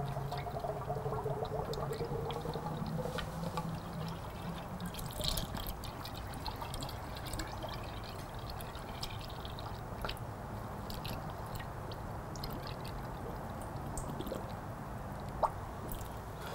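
Antifreeze coolant pouring steadily from a plastic jug into a motorcycle radiator's filler neck, with a few small clicks.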